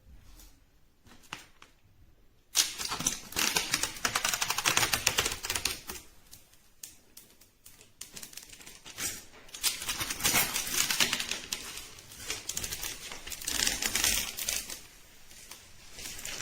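Rapid, dense run of small clicks and clatter, like fast typing. It starts about two and a half seconds in and comes in louder and softer waves.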